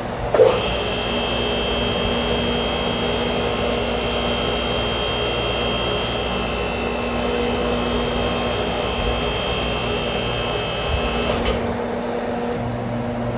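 Electric-hydraulic power unit of a BendPak MaxJax portable car lift running steadily as it raises a full-size SUV close to its 6,000 lb rated capacity. Two sharp clicks come through, one just after the start and one near the end.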